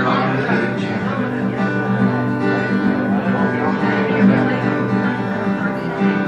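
Live guitar playing an instrumental passage with no singing, the notes sustained and even.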